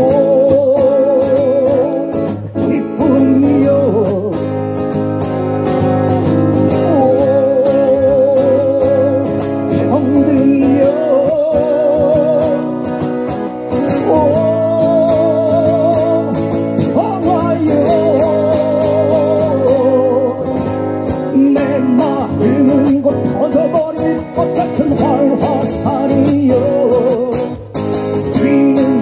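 Live song performance: a lead melody held in long notes with heavy vibrato over a full accompaniment, steady and loud throughout.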